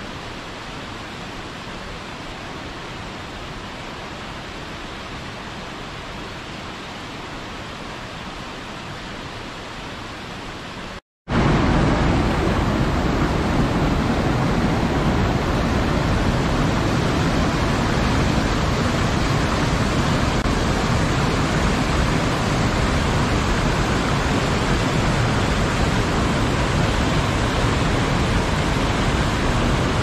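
Steady rush of a waterfall, an even wash of falling water. About eleven seconds in it breaks off for an instant and comes back much louder and deeper.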